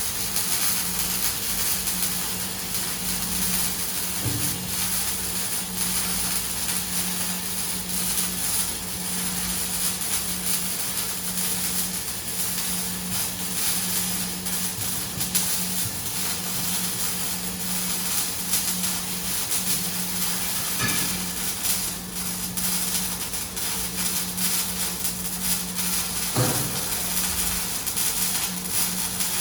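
Semi-automatic (MIG/MAG) welding arc burning continuously: a steady hiss with a constant hum underneath.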